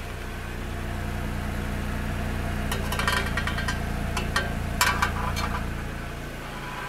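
Acura NSX V6 idling at the tailpipe while still warming up, louder through the middle of the clip. A cluster of sharp clicks and rattles near the middle comes as the wideband oxygen sensor probe is pushed back into the exhaust tip.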